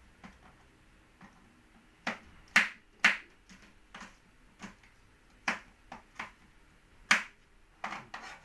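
Kitchen knife slicing tomatoes on a plastic cutting board: a dozen or so sharp, irregular knocks of the blade hitting the board, starting about two seconds in.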